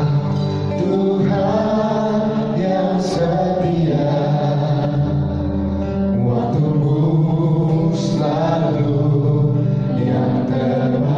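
Gospel worship song: voices singing over steady band accompaniment with a sustained bass.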